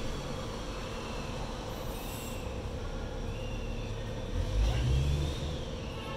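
City street traffic: cars passing through an intersection, with a louder low rumble about four and a half seconds in as a vehicle passes close.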